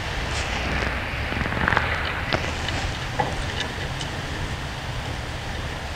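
Steady rushing background noise with a low hum, and a few faint, light metallic clicks and taps from the wheel cylinder's mounting nuts being threaded by hand onto the brake backing plate.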